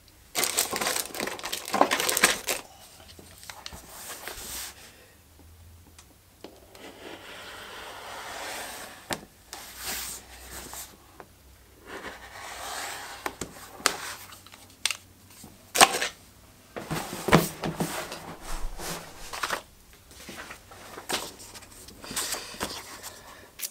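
A leather hide being handled and cut: irregular rustling, rubbing and scraping as the stiff leather is moved and laid flat, a rotary cutter running through it, and near the end a sheet of paper being handled.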